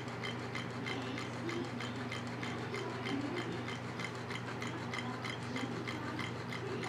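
Low-temperature-differential Stirling engine running on dry ice and hot water. Its mechanism gives a light, regular click on each turn of the flywheel, about three clicks a second (around 200 RPM).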